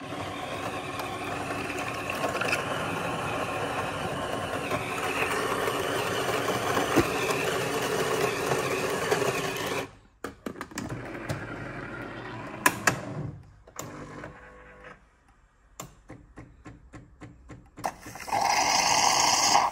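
Kalerm K95L super-automatic espresso machine's built-in grinder grinding coffee beans for about ten seconds, then stopping abruptly. A stretch of scattered clicks and short mechanical pulses follows as the brew unit works. Near the end a loud steady hiss starts as the machine begins steam-frothing for a cappuccino.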